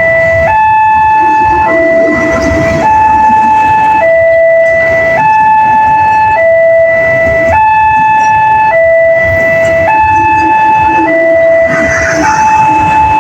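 Railway level-crossing warning siren sounding a two-tone hi-lo, switching between a lower and a higher tone about every second, warning road traffic of an approaching train.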